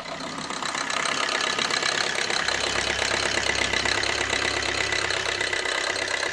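2007 Suzuki Swift's common-rail diesel engine idling with a steady diesel clatter, louder after the first second. The idle is too high, which the mechanic says can be heard from the sound itself.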